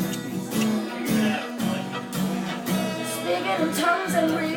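Live acoustic music: a guitar strummed in a steady rhythm, with chords struck about twice a second.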